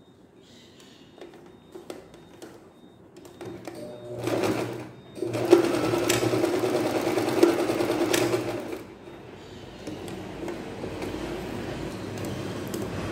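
Domestic electric sewing machine stitching. Faint handling clicks come first, then a short run about four seconds in. A louder run of about three seconds follows, then a quieter steady run near the end.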